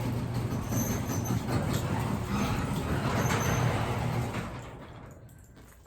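Electric garage door opener running as the door rolls up: a steady motor hum under the rattle of the door. It dies away near the end as the door finishes opening.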